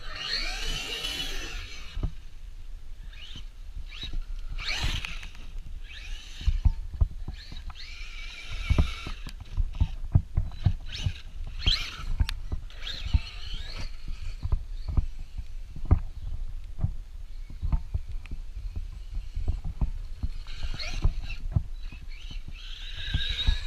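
Traxxas Maxx RC monster truck being driven in short bursts: its electric motor whining up with a rush of tyre noise several times, amid frequent irregular low thumps.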